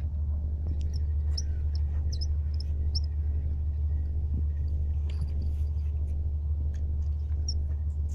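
A steady low rumble, with a few faint, short, high chirps about one to three seconds in.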